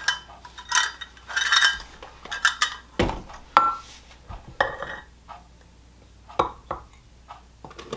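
A measuring cup knocking and scraping against a stainless steel stand-mixer bowl and a glass flour jar as flour is scooped and tipped in: a string of separate clinks, some ringing briefly.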